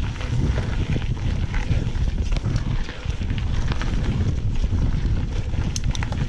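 Wind buffeting an action camera's microphone on a mountain bike riding a dirt trail, with a steady low rumble from the tyres and the bike rattling in short clicks, several close together near the end.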